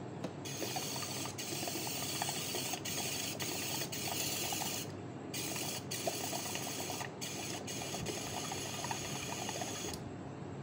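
Airbrush hissing as compressed air blows through it, cut off briefly about a dozen times as the trigger is let off and pressed again.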